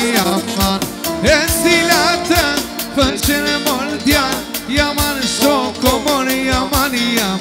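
Live Albanian folk (popullore) dance music: a steady drum beat under an ornamented, wavering lead melody.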